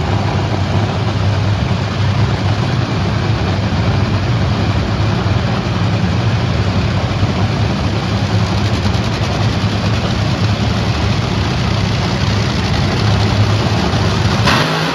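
Several top fuel dragsters' supercharged nitromethane V8 engines running loud and steady together as they do their burnouts. The sound is a rough, low drone. About fourteen and a half seconds in there is a sharp break, and the sound shifts to a new pitch as a nearer car's engine changes.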